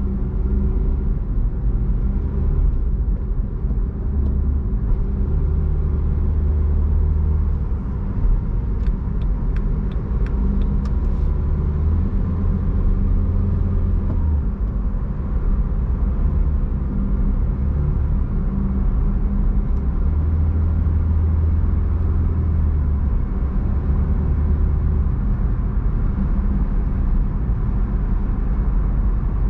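Steady low rumble of a car being driven, engine and tyre noise together, with a short run of light clicks about nine seconds in.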